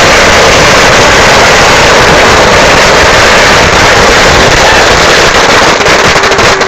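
A massive string of firecrackers going off as one unbroken, very loud crackle, so dense that the separate bangs merge together. Near the end it starts to thin into distinct cracks.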